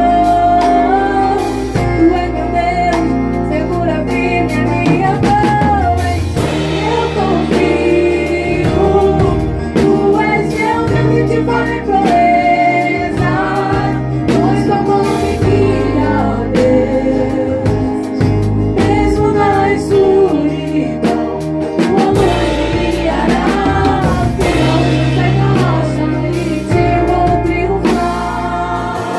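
Worship band rehearsing a gospel song: singing with held, wavering notes over steady bass and instrumental backing.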